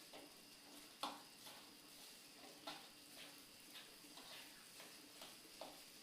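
Near silence with a faint hiss and scattered soft, short ticks at irregular intervals, the clearest about a second in.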